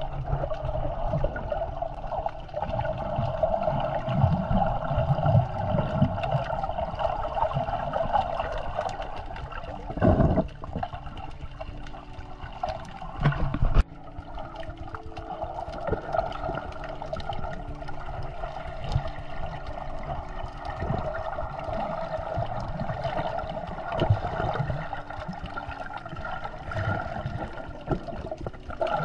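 Water heard underwater through a camera in a waterproof housing: a steady, muffled rushing with gurgles and low rumbles, and two dull knocks about ten and fourteen seconds in.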